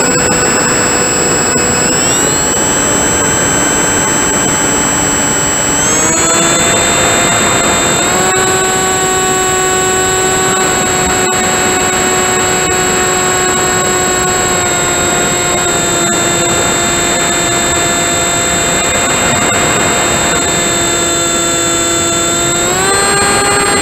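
RC model airplane's motor and propeller running with a steady whine, heard from the plane's onboard camera over a rush of wind. The pitch steps up about 2, 6 and 8 seconds in, eases slightly around the middle, and rises again near the end as the throttle changes.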